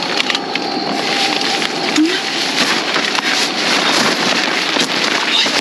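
Continuous rustling of nylon tent fabric and a plastic tarp groundsheet rubbing against the camera's microphone.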